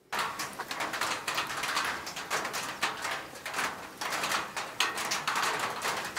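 Heavy rain in a downpour: a dense, steady patter of drops.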